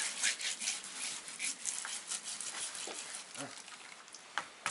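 A knife scraping the skin of a sturgeon in quick, rough strokes to clean it. The strokes come thick at first and thin out later, with a sharp click near the end.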